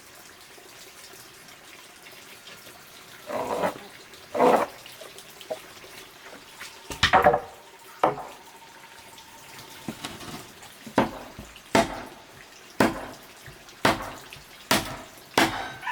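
A few splashes of water, then from about halfway through a run of sharp chopping strikes, roughly one a second.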